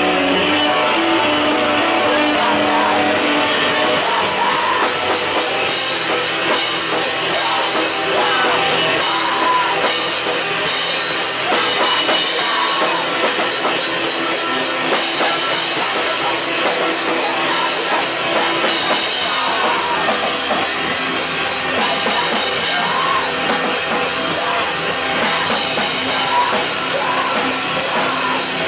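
Live rock band playing loud: electric guitars over a drum kit, with the drums and cymbals coming in about four seconds in.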